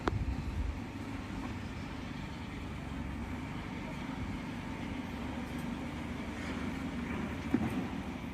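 Steady low rumble of vehicle noise, with a knock right at the start and a short sharp click about seven and a half seconds in.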